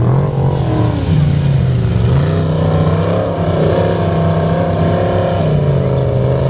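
Formula Offroad modified-class buggy's engine revving hard under load on a sand hill, its pitch rising and falling as the throttle is worked, dipping about two seconds in and climbing again.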